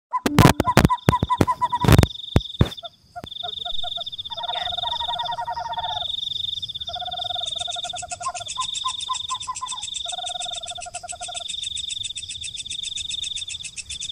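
Night chorus of insects and frogs: a steady, pulsing high chirr with three short bursts of rapid trilled calls, and a finer high buzz joining about halfway through. A burst of loud clicks and knocks comes in the first three seconds.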